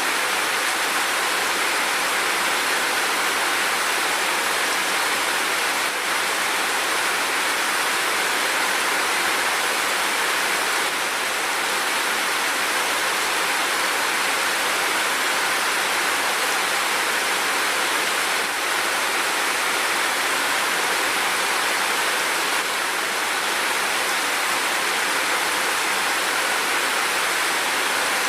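Steady, even rain, a dense hiss with no single drops or thunder standing out.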